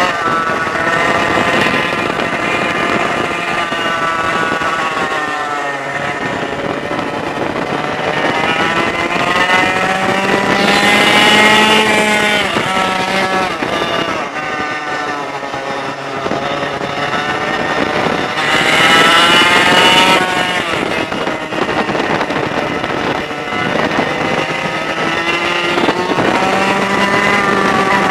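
Onboard 100cc two-stroke kart engine at racing speed, its pitch climbing as it accelerates along the straights and dropping off for the corners, highest about eleven and nineteen seconds in.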